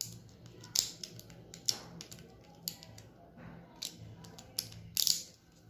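Beyblade Burst tops being handled and their parts twisted and snapped together, giving sharp plastic-and-metal clicks and clinks, about six spread out, over a low steady hum.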